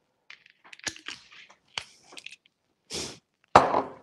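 Kitchen handling noises: a string of small clicks and taps, a short rustle about three seconds in, and a loud knock just after, as bottles and containers are picked up and set down on the counter.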